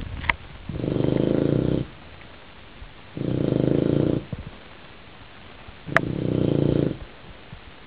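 Bulldog snoring in its sleep: three loud snores, each about a second long, coming regularly about every two and a half seconds. A sharp click at the start of the third snore.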